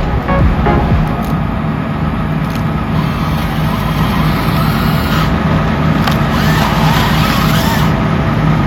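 Large diesel engine of heavy land-clearing machinery running steadily at a constant pitch.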